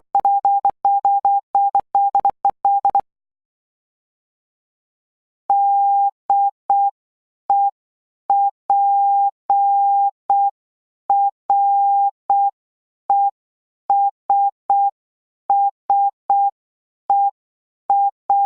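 Morse code practice tone: a single steady beep pitch keyed into dots and dashes. For the first three seconds a word is sent rapidly; after a pause of about two and a half seconds, a word is sent more slowly with clearly separated dots and dashes.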